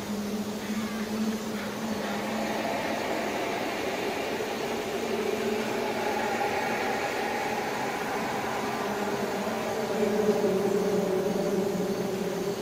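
A dark ambient drone soundtrack: a steady, low hum of several held tones that swells slightly about ten seconds in.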